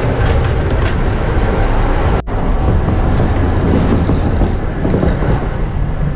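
Moving Amtrak passenger train heard from inside the cars: a loud, steady rumble and rattle of the running train, cut off for a split second about two seconds in.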